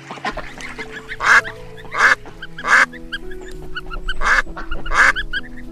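Waterfowl calling, five loud, short, harsh calls in an uneven series over background music.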